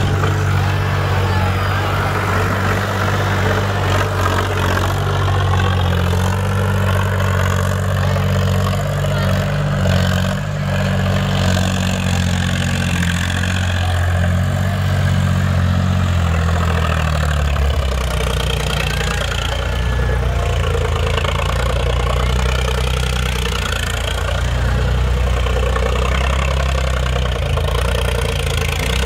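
Preet 955 tractor's diesel engine running steadily while the tractor is reared up on its rear wheels in a wheelie. A little over halfway through, the engine note drops lower and holds there.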